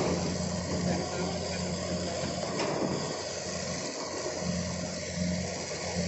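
Heavy diesel engine of earthmoving machinery running steadily, a constant low hum.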